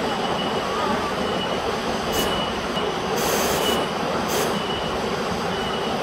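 Waterfall rushing steadily as water pours over a rock face into a pool, with a few brief hissy splashes.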